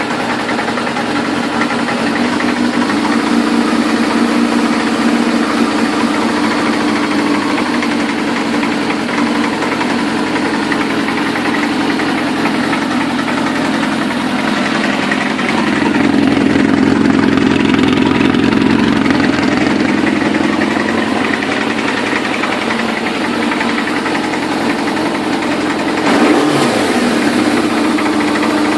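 Suzuki RF600's inline-four engine running at idle, its speed rising for a few seconds around the middle and given a short blip near the end.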